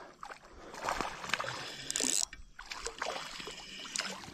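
Water splashing and sloshing as a hooked fish is fought and reeled in at the surface, with scattered small clicks; a short hissing splash about two seconds in is the loudest part.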